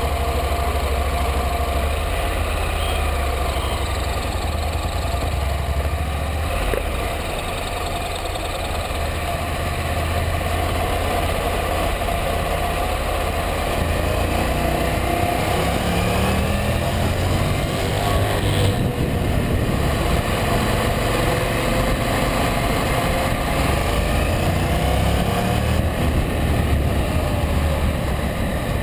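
Honda NC700X's 670 cc parallel-twin engine running while the motorcycle is ridden, its pitch rising and falling with the throttle through the second half.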